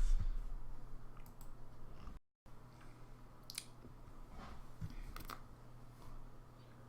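Quiet room with a steady low hum and a few faint, scattered clicks. The sound cuts out completely for a moment a little after two seconds in.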